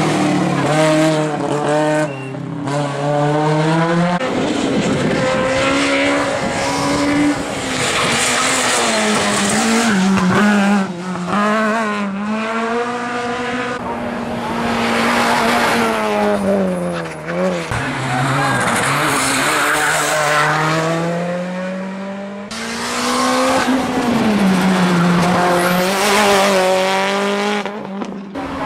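Race car engines revving hard as they pass, rising and falling in pitch through gear changes, in a run of short clips that cut off abruptly; the first is a classic Mk1 Ford Escort rally car.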